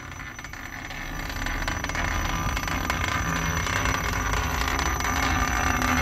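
Belt-driven centrifugal supply fan of a Trane chilled-water air handler starting up. The motor and blower whir and rush of air build over the first two seconds, then run steadily: the unit is back on after its high static pressure switch was reset.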